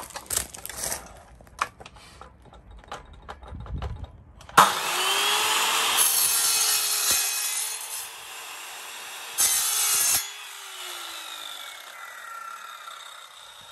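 Guild mitre saw starting with a sudden jump about four and a half seconds in, its spinning blade cutting through the carpet kicker's housing for a few seconds; a second short cut follows, then the motor winds down with a falling whine. Handling clicks and knocks come before the saw starts.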